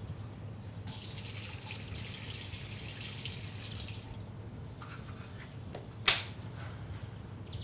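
Kitchen tap running into a sink for about three seconds, then stopping. About six seconds in there is a single sharp knock at the sink, much louder than the water.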